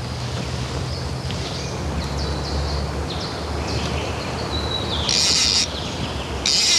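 Outdoor ambience with small birds chirping repeatedly over a steady low hum, and two short buzzing bursts about five seconds in and again at the end.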